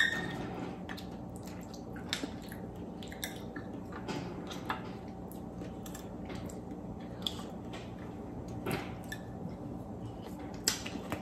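Faint eating sounds at a table: soft wet squishing and chewing, with scattered light clicks and taps of a fork on a plate, over a steady low hum.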